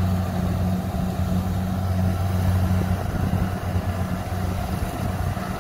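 Kubota DC-70 combine harvester running steadily while cutting rice, a low engine hum that fades a little as the machine moves away.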